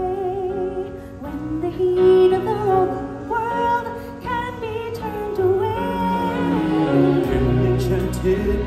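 A woman singing a solo into a microphone over the show's backing music, holding long notes with vibrato. A deep bass comes in near the end.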